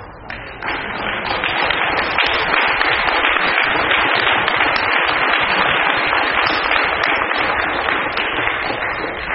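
An audience applauding: many hands clapping in a dense, even patter. It starts about half a second in and tapers off near the end.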